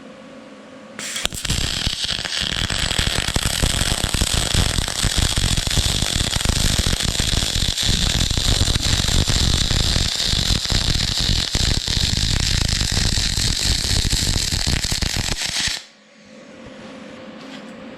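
Aluminum MIG weld being run with a Vulcan spool gun: a steady, loud crackling hiss from the arc that starts about a second in and stops abruptly near the end as the trigger is released.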